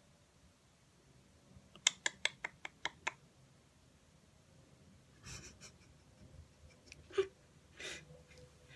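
Cotton pad rubbing over a kitten's face and fur in short rustling strokes. About two seconds in there is a quick run of about eight sharp clicks, followed later by a single sharper tap.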